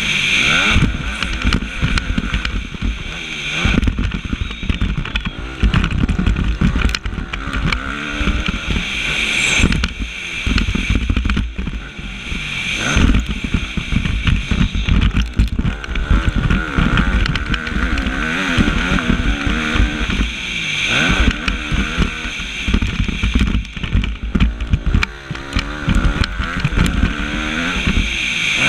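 Motocross bike's engine revving up and falling off again and again as it is ridden hard, heard from on the bike with wind rushing over the microphone.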